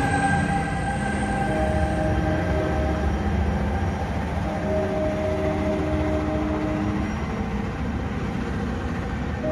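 Bombardier ALP-45DP dual-mode locomotive running on its diesel engines, rumbling steadily and fading slowly as the train pulls away, with a few steady tones coming and going over the rumble.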